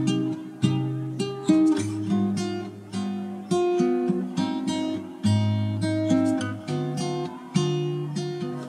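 Background music: acoustic guitar playing, chords plucked and strummed.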